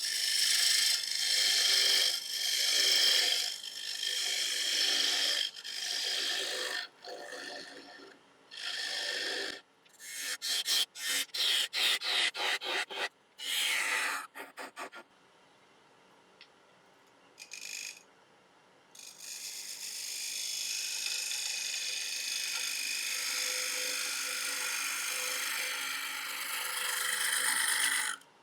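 Bowl gouge cutting into a spinning walnut bowl on a wood lathe while hollowing the inside, in a series of separate passes. About halfway through comes a quick run of short cuts, about four or five a second, then a few seconds of near quiet before one long, even cut near the end.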